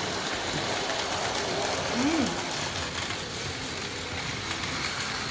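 A steady rushing hiss like rain, with a brief rising-and-falling voiced hum about two seconds in.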